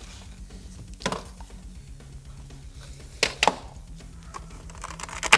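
Quiet background music under a few short knocks and clicks of diagnostic gear being handled and set down in a car's footwell, the sharpest just before the end.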